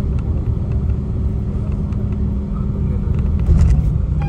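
Bus driving on the road: a steady low engine and road rumble, with a brief clatter about three and a half seconds in.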